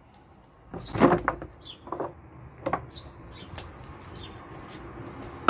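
Wooden hive frames knocking and clattering as they are handled in a stainless steel steam wax melter: a loud knock about a second in, then a few lighter knocks. Birds chirp in the background.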